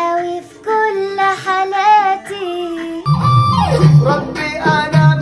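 Arabic pop song clips: a sung melody with vibrato, then about three seconds in an abrupt switch to another song with a heavy beat and plucked guitar.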